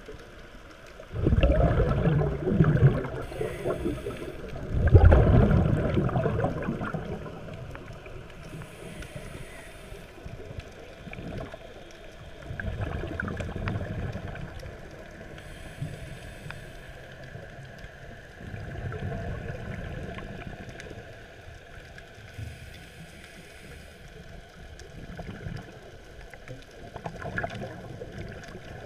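Scuba diver breathing through a regulator underwater: a short high hiss on each inhale, then a gurgling rush of exhaled bubbles, repeating about every six or seven seconds. The bubble rushes about one and five seconds in are the loudest.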